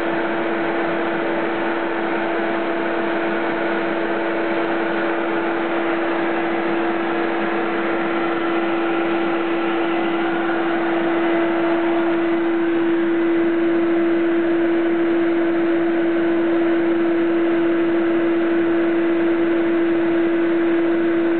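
CNC router milling model ship frames, its spindle running with a steady, even whine over a noisy cutting hiss; it grows a little louder about halfway through.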